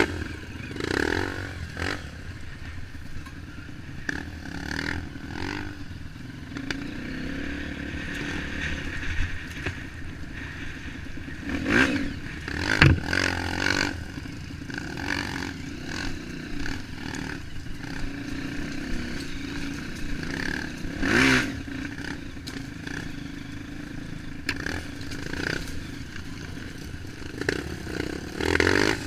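Trail motorcycle engine running under way over a rough dirt trail, with clattering and scraping throughout and a few louder knocks a little before halfway and again about two-thirds through.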